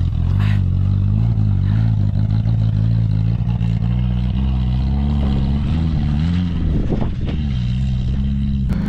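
Off-road vehicle engine running at low revs while crawling over a rocky trail. Its pitch rises and falls gently as the throttle changes.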